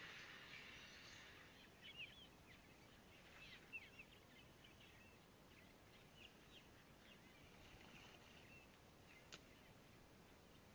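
Faint, near-silent open-air ambience with scattered short bird chirps, most of them a few seconds in. A faint high hiss fades out in the first second, and a single sharp click comes near the end.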